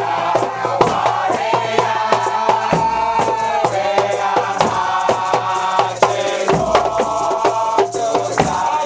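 Congregation chanting a hymn together in unison, voices held on long notes, over a steady beat of hand drums and rattling shakers.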